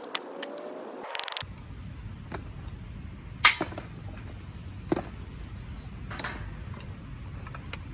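Sharp knocks about a second apart, the loudest a few seconds in, typical of a baton striking the back of a knife to split firewood. Just before them comes a brief run of quick clicks.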